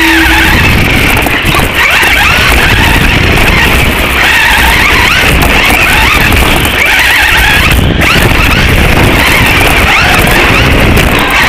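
Team Associated SC10 electric RC short course truck racing, heard close from on board: the motor and gears whine, rising and falling in pitch with the throttle, over a heavy rumble from the tyres and chassis on the dirt track.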